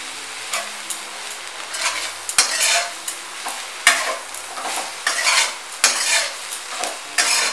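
Metal spatula stirring and tossing leafy greens in a wok, scraping the pan in irregular strokes over a steady sizzle of frying.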